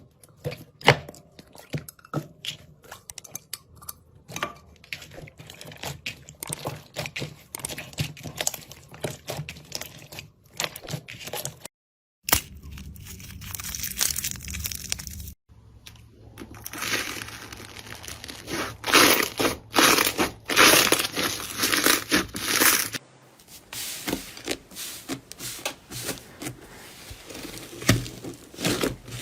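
Slime being squeezed, poked and stretched by hand: a dense run of crackling, popping and crunching sounds. It breaks off briefly about 12 and 15 seconds in where one clip cuts to the next, and is loudest in the second half.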